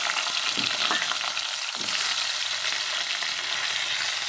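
Halved brinjals coated in salt and turmeric sizzling in hot oil in a kadai: a steady frying hiss.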